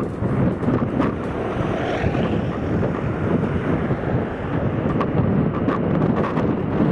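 Gusty wind buffeting the microphone over the steady jet engine noise of an Airbus A321 on short final approach.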